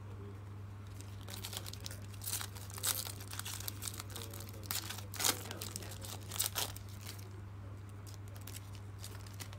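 Foil wrapper of a Panini Mosaic trading-card pack being torn open and crinkled by hand: a string of crackling rips, the loudest about five seconds in, then quieter. A steady low electrical hum runs underneath.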